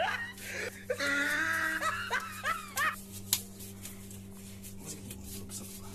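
A man laughing in short, falling bursts, with one long high drawn-out note in the middle; the laughter stops about three seconds in. Soft handling rustles and a click follow over a steady low hum.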